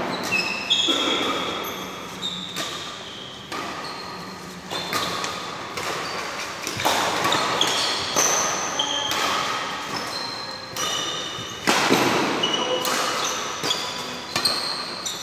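A badminton rally: rackets striking the shuttlecock in a string of sharp hits, with short high-pitched squeaks of court shoes on the floor between them, all echoing in a large hall.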